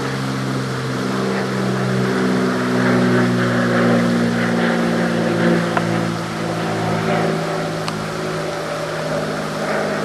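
Steady low drone of engines running, several hums at slightly different pitches that overlap and shift slowly.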